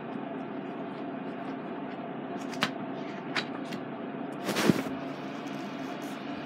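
CD jewel cases and a paper booklet being handled: a few light clicks, then a louder rustling clatter about four and a half seconds in, over a steady background hum.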